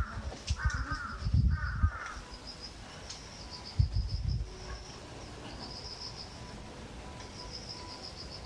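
A crow cawing three times in quick succession in the first two seconds, over steady high pulsed chirping of insects. Low thumps on the microphone come twice, near the start and about four seconds in.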